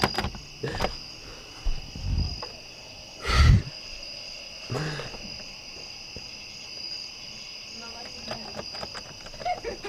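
Crickets trilling steadily in the background, with sharp clicks of a door handle as a door is opened at the start and a loud thump about three and a half seconds in.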